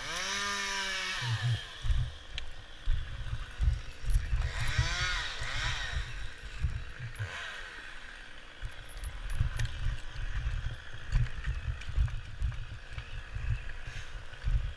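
Chainsaw revving up and back down in short bursts: one at the start, one around five seconds and a shorter one near seven seconds. Constant low rumbling and knocking sound runs under it.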